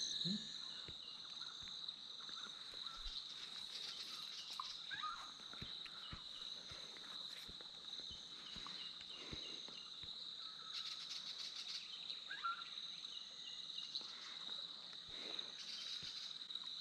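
Insects droning at one steady high pitch, with scattered faint bird chirps and a few soft clicks over it.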